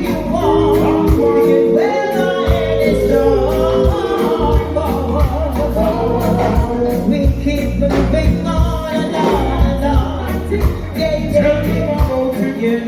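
Music with singing over a steady bass beat.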